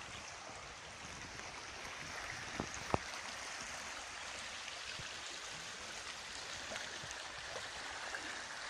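Small river running over shallow rippling water: a steady rushing of water, with one brief knock about three seconds in.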